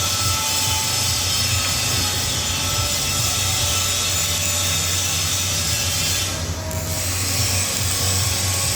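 Steady workshop machinery noise: an even, loud hiss over a low hum, briefly dropping for a moment about six and a half seconds in.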